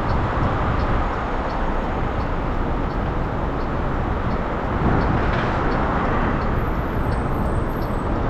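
Steady rushing wind and road noise on the microphone of a moving electric motorcycle, with no engine note to be heard.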